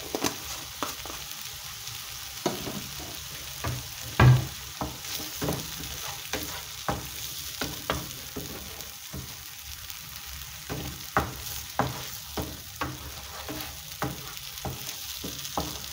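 Thick tomato curry sauce sizzling in a frying pan while a wooden spatula stirs and scrapes through it. The spatula knocks against the pan again and again, with the loudest knock about four seconds in.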